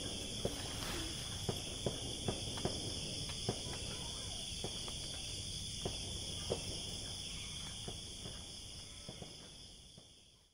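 Steady night chorus of crickets and other insects chirring, with scattered light ticks and taps over it. The sound fades out near the end.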